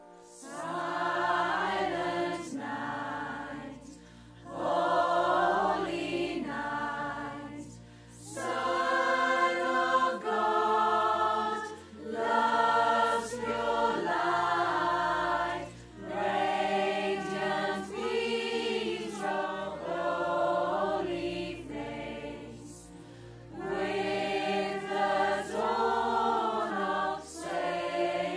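Mixed choir of men's and women's voices singing a Christmas song together, in phrases of about four seconds with short breaks between them.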